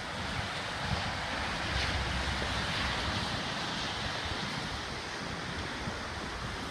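Heavy rain falling with steady hiss, and strong gusty wind buffeting the microphone, the gusts strongest a couple of seconds in.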